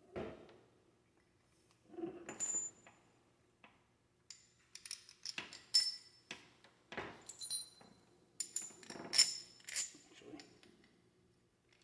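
Small metal parts clinking and tapping as they are handled and fitted, with a dull knock at the start and a busy run of sharp, briefly ringing clinks from about four to ten seconds in.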